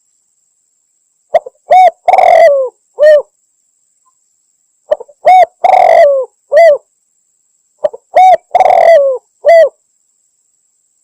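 Spotted dove cooing: the same multi-note coo phrase, a few short notes and then a longer drawn coo, repeated three times about three seconds apart, with dead silence between. This is a recorded lure call, said to be a female calling a male, used to draw male spotted doves in for hunting.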